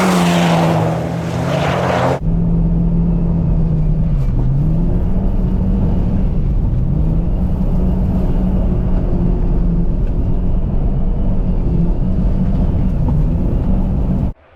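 Car engine running under throttle while ice drifting, its pitch dipping and climbing again several times with throttle changes. A loud hiss rides over it for about the first two seconds and stops abruptly; the sound cuts off suddenly near the end.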